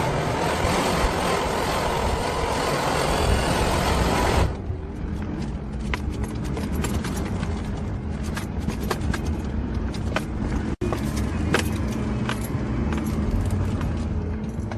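Off-road vehicle engine running on the move, under a loud rushing noise that cuts off abruptly about four and a half seconds in; after that a steady low engine drone remains, with scattered clicks and rattles.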